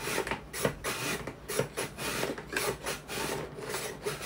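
A carrot being julienned on a wooden mandoline: rasping back-and-forth strokes about twice a second as the blade cuts it into matchsticks.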